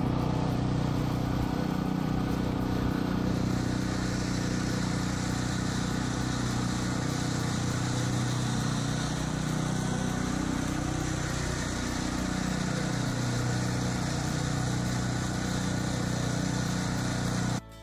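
Petrol-engined cylinder (reel) mower running steadily as it cuts a lawn very low, close to the soil. The sound cuts off abruptly near the end.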